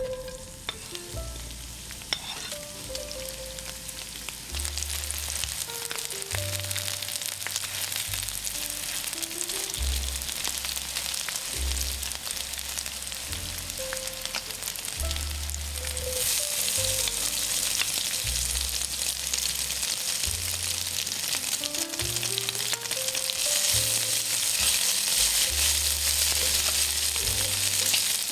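Food sizzling in hot oil on a flat pan, a steady dense sizzle with scattered small crackles. It grows louder about halfway through and again near the end.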